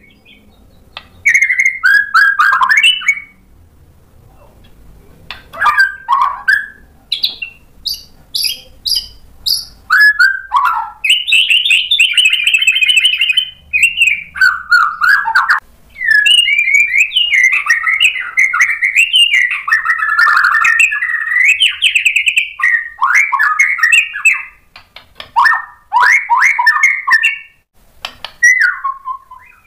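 Male white-rumped shama (murai batu) singing loudly in varied bursts of clear whistles, fast trills and chatter, with a few short pauses. It is a full, energetic song packed with learned phrases (isian).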